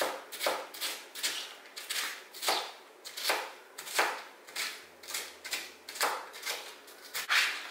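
Kitchen knife chopping green capsicum (bell pepper) on a chopping board in a steady rhythm of about two to three cuts a second, each stroke slicing through the pepper and knocking the board.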